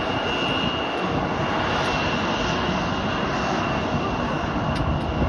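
Turbofan engines of a Fuji Dream Airlines Embraer regional jet running steadily: an even rushing noise with a thin high whine held on one pitch.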